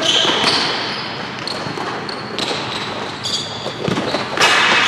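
A futsal ball being kicked and bouncing on a hard indoor court, with athletic shoes squeaking on the floor, echoing in a large hall. There is a louder burst near the end.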